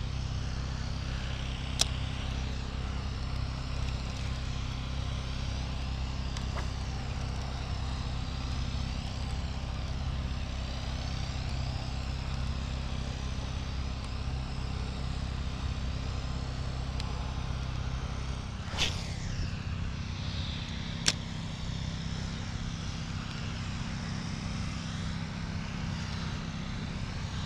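Steady low mechanical hum with a few short, sharp clicks, and a brief louder swish about two-thirds of the way through.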